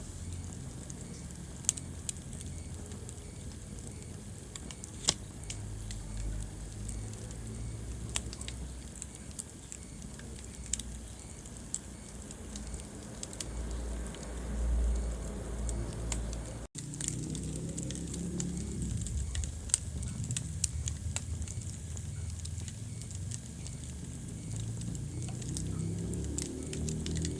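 Wood fire burning in a fireplace: a steady low rumble of flames with scattered sharp crackles and pops. The sound cuts out for an instant about two thirds of the way through.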